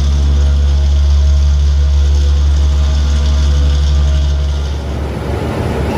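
A heavy machine's engine running with a steady low hum; a little under five seconds in, the sound changes to a rougher, noisier rumble.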